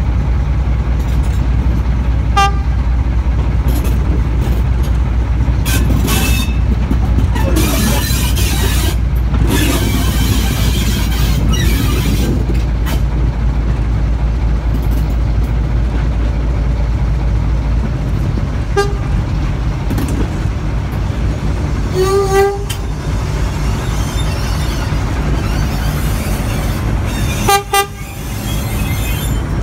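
Heritage railway diesel train running slowly with a steady low rumble, and a locomotive horn sounding four short toots: one a few seconds in, two about two-thirds of the way through (the second a little longer), and one near the end.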